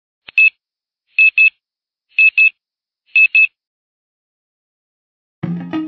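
Electronic alarm beeping: four high double beeps about a second apart, then it stops. Electric guitar music comes in just before the end.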